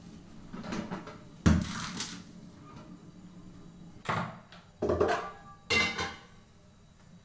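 Metal cooking pots and lids clanking as they are handled and set down on a gas stove. A loud clank comes about a second and a half in, then three more clatters in the second half, the last one ringing briefly.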